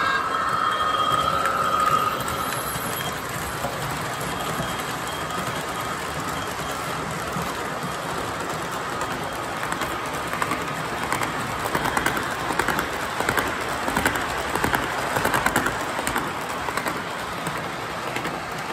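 O scale model train running on three-rail track: a steady rumble of metal wheels on rail. A held tone dies away about two seconds in, and from about ten to sixteen seconds in there is a run of louder clicks.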